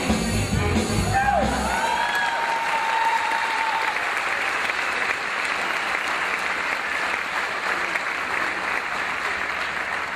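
Performance music with a drum beat cuts off about two seconds in, and a circus audience claps steadily for the rest of the time. A long high note is held over the clapping for a couple of seconds just after the music stops.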